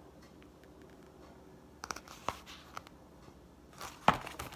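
Paperback book pages being handled and turned: a few soft taps and rustles, then a louder flurry of paper rustling with a sharp tap near the end.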